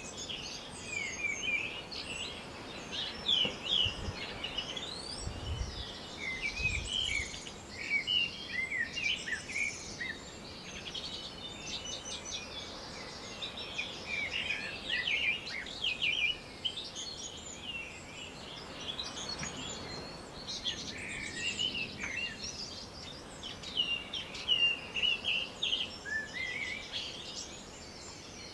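Small songbirds chirping and singing, many short high notes overlapping one another, with a few low bumps about four to seven seconds in.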